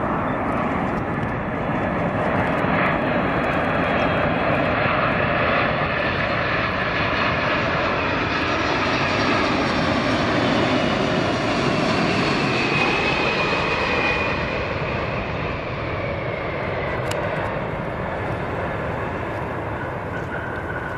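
Boeing 747 Dreamlifter's four turbofan engines on landing approach, a loud jet rush that swells as the aircraft passes close by, then eases off with a whine falling in pitch as it moves away.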